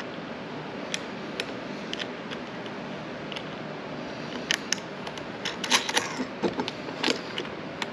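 Small metal hardware clicking and clinking as bolts, flat washers and nylock nuts are fitted by hand and a steel load bar clamp is set on the roof rack's spine. A few single clicks at first, then a quicker run of clicks about halfway through, over steady room noise.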